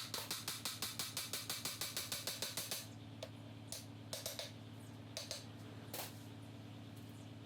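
Ratchet wrench clicking quickly and evenly, about seven clicks a second for nearly three seconds, then in a few short bursts of clicks, as bolts are run in on the transmission.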